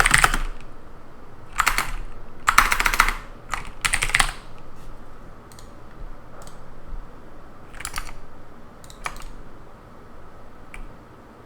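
Typing on a computer keyboard in a few quick bursts, thinning after about four seconds to scattered single key or mouse clicks, over a steady faint hiss.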